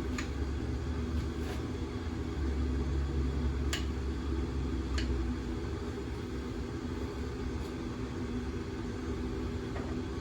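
Steady low hum of workshop room tone, with three light sharp clicks: one at the start and two close together near the middle.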